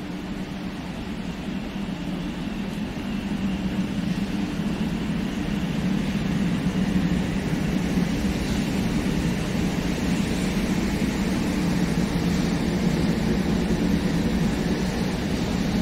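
Shinkansen train running along the platform: a steady rumble with a low hum that builds over the first several seconds and then holds.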